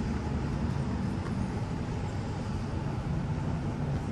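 Steady low rumble of road traffic going by on a busy street.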